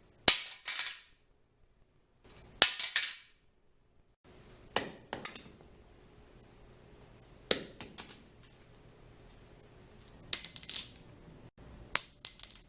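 A small hard object striking a hard surface and bouncing, six times about two to three seconds apart. Each drop is a sharp impact followed by a few quick, quieter rebounds. The last two drops ring briefly.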